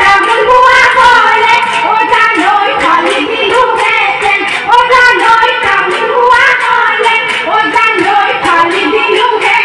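A singer performing a Bihu song through a PA loudspeaker, over amplified music with a fast, steady drumbeat.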